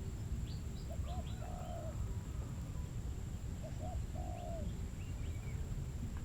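Bird calls: two short phrases of low notes, one about a second in and one about four seconds in, with faint higher chirps between, over a steady low rumble.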